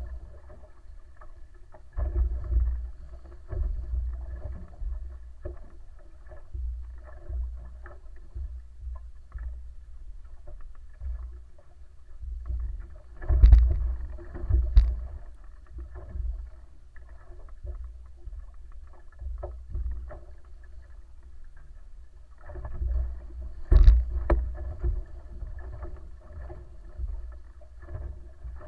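Wooden outrigger sailing canoe under way: a low, uneven rumble of wind and water along the hull, with a few sharp knocks or slaps, the loudest about 13 to 15 seconds in and again about 24 seconds in.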